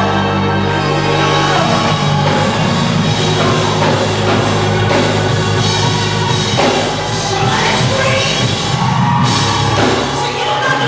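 Loud church praise music with a drum kit and a steady bass line.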